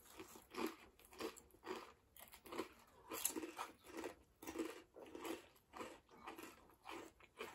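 Crunchy snack chips being chewed, a dry crunch about twice a second.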